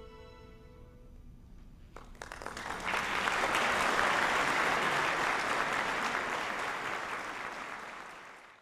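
The orchestra's last held chord dies away, then audience applause breaks out about two seconds in, swells quickly to a full ovation, and tapers before cutting off at the end.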